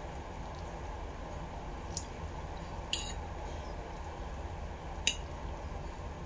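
A metal fork clinking against a plate three times, about two, three and five seconds in, the middle one the loudest, as noodles are twirled and lifted from it. A steady low hum runs underneath.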